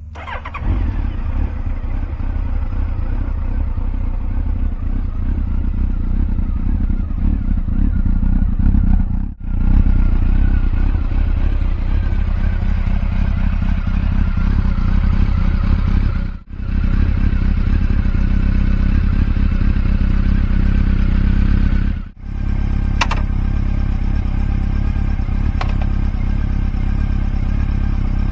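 Honda CB1300SB's inline-four engine started on the electric starter, catching almost at once, then idling steadily through an aftermarket four-into-one exhaust. The sound drops out briefly three times.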